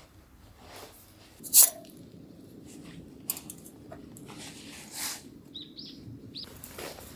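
A few sharp clicks and knocks, the loudest about one and a half seconds in, then a few short high chirps near the end.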